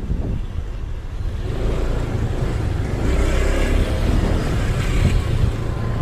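Motorcycle engine running at low speed with wind noise on the microphone, getting somewhat louder about a second and a half in.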